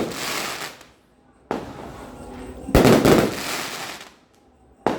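Fireworks going off: sharp bangs about a second and a half in, near three seconds, and right at the end. Each bang is followed by a crackling hiss that fades over about a second, and the one near three seconds is the loudest.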